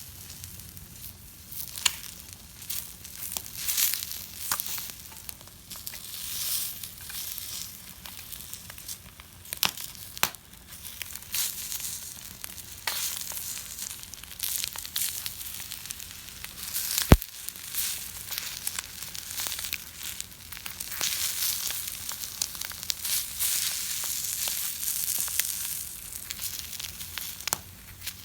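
Small wood fire crackling and hissing, with scattered snaps and one sharp pop about two-thirds of the way through.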